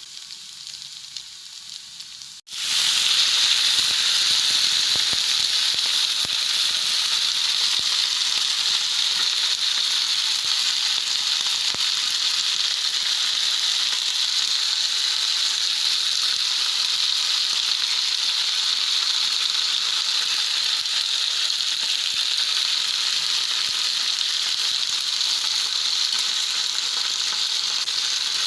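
Food sizzling in hot oil in a pan, a steady hiss. It is faint at first, then cuts abruptly to a much louder, steady sizzle about two and a half seconds in.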